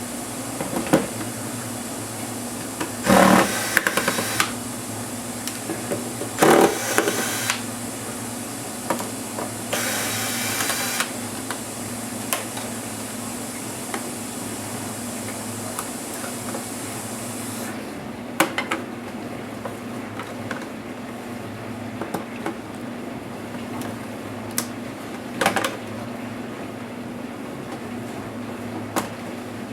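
Three short whirring bursts of a small motor, each about a second long, then scattered sharp clicks and taps of small hard parts during laptop disassembly.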